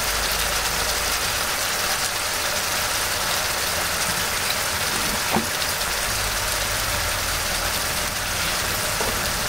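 Tomato-chili sambal with pindang tuna simmering in a pan on the stove: a steady sizzling hiss, with a low hum underneath that comes and goes.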